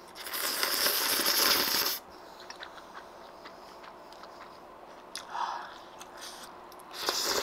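A person slurping thick kalguksu noodles in one long slurp of about two seconds, then quieter chewing with small wet clicks. Another short slurp comes near the end.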